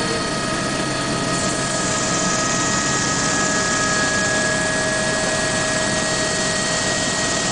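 Aerospatiale AS350B Ecureuil helicopter in flight, heard from inside the cabin: its single turboshaft engine and rotor give a steady drone with a high whine of several held tones. The high hiss grows brighter about a second and a half in.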